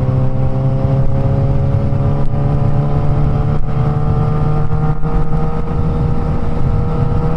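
Suzuki GSX-S1000's remapped inline-four engine heard from the saddle through its Firetong aftermarket exhaust while riding. The engine note rises slowly and steadily in pitch as the bike gains speed.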